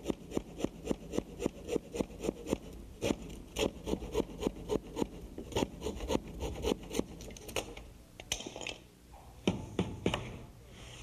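Handsaw cutting off the protruding wood shingle shims at the foot of a door jamb: quick, even sawing strokes on wood, about four a second, stopping about seven and a half seconds in, then a few scattered strokes.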